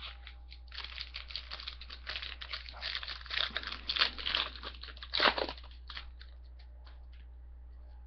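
A foil trading-card pack wrapper being torn open and crinkled in the hands. It crackles in a dense run for about five seconds, then a few light ticks follow as it is set down.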